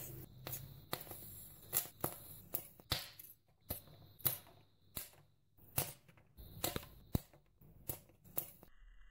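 Popcorn kernels heated in a foil holder over a small flame, crackling and popping: a dozen or more sharp clicks at irregular intervals.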